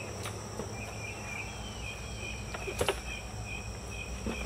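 Steady high-pitched drone of insects, with a few knocks and clunks as gear is set into a travel trailer's exterior storage compartment; the loudest knock comes a little under three seconds in.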